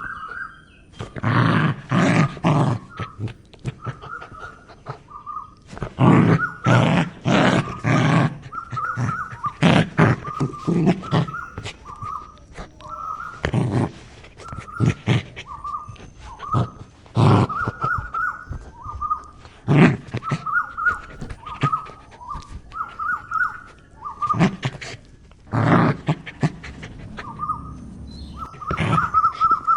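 A dog barking in groups of several quick barks, with short high-pitched squeaky whines between the groups.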